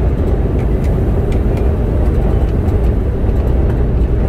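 Semi truck cruising at highway speed, heard from inside the cab: a steady, loud, low rumble of engine and road noise.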